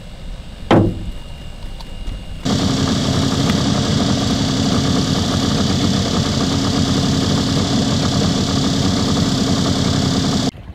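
A short sharp sound falling in pitch about a second in. Then, from about two and a half seconds, an outboard motor, the boat's Mercury 25 hp two-stroke, runs steadily at a constant pitch and cuts off abruptly near the end.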